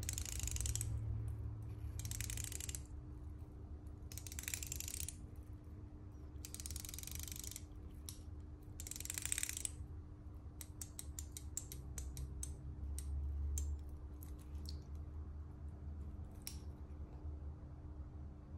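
Seiko 5 Sports SRPD65K1's unidirectional steel bezel being turned by hand: five quick ratcheting runs of clicks about two seconds apart, then slower single heavy clicks as it is turned notch by notch around the middle.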